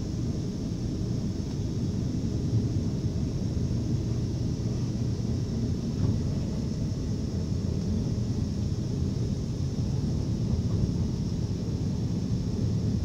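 Steady low rumble of an NS ICMm 'Koploper' electric multiple unit running on the rails, heard from inside the train at the door.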